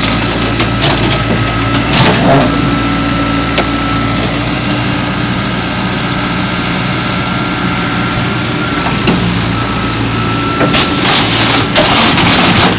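A backhoe's engine runs steadily while its bucket presses down on a car body, crushing it. Crunching and cracking come in short bursts about two seconds in and again over a longer stretch near the end.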